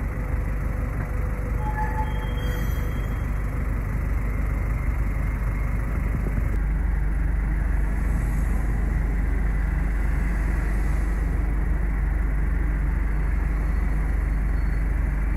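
A low-floor electric tram passes near the start, then steady city road traffic with cars driving by, a constant low rumble under it all.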